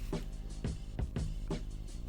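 Background music with a steady beat: drums and bass with pitched instruments.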